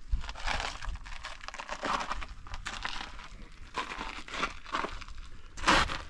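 Footsteps crunching on loose ground, a string of uneven steps with one louder crunch near the end, over a low rumble.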